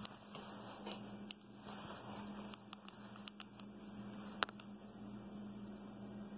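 Faint steady electrical hum with a slow pulsing beneath it, and a few light clicks from handling, the sharpest about four and a half seconds in.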